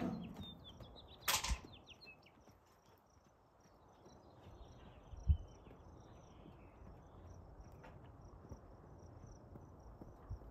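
Faint, steady high-pitched chirping of insects, repeating evenly, with a brief sharp noise a little over a second in and a low thump about five seconds in.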